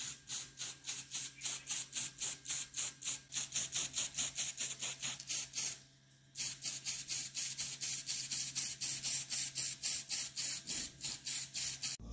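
Rhythmic back-and-forth abrasive strokes on the metal of an old meat grinder being cleaned by hand, about four or five strokes a second, with a short pause about six seconds in. A faint steady hum runs underneath.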